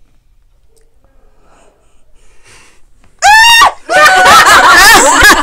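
A girl's voice: a sudden loud, high-pitched yelp about three seconds in, then loud wavering squeals and wheezing laughter, as her back is pressed down hard to crack it.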